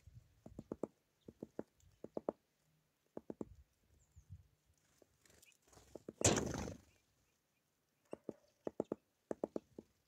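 Great spotted woodpecker pecking at food in a wooden feeder tray: quick bursts of three to five sharp taps, about one burst a second, pausing in the middle. A brief loud rush about six seconds in.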